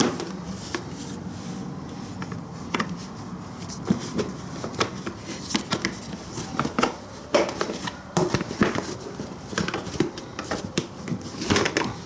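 Irregular clicks, taps and scrapes of motorcycle parts and a bracket being handled and fitted back into place.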